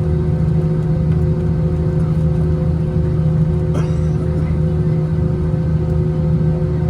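Steady drone of an Airbus A320-200's jet engines heard inside the passenger cabin, a low hum with a few steady tones over it. A brief click comes a little past halfway.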